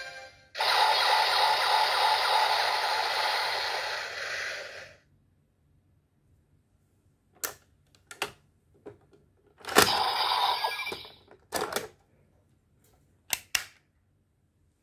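Bandai DX Zero-Two Driver toy belt playing an electronic sound effect through its small speaker for about four seconds, then cutting off. After a pause come sharp plastic clicks and a second-long rattle as the Progrise Key is worked out of the belt by hand.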